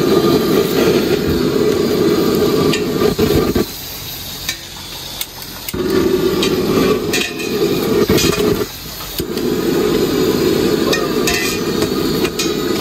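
Jet-type gas burner roaring under frying food, with the clink and scrape of a metal spatula. The roar drops away for about two seconds a few seconds in, and again briefly later.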